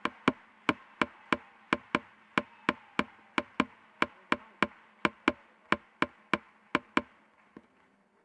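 A steady series of sharp, dry clicks, about three a second, that stops about seven seconds in.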